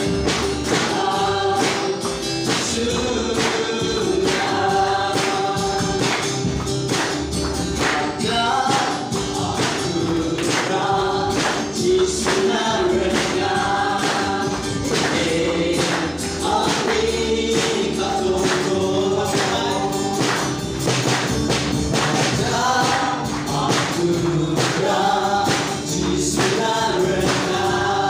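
A group singing a gospel worship song together, with hands clapping on a steady beat.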